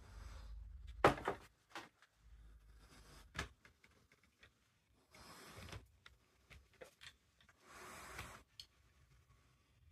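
Aerosol spray paint can hissing in two short bursts of about a second each, with a sharp knock about a second in and a few lighter clicks.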